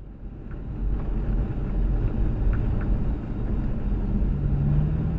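Toyota FJ Cruiser driving, heard inside the cab: a steady low rumble of engine and road noise that fades in over the first second or so. A steady low hum joins about four seconds in.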